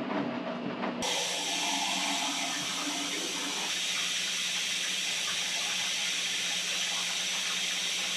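Equator ultra-compact washing machine running, with a steady, loud hiss of rushing water that starts suddenly about a second in, over a low steady hum.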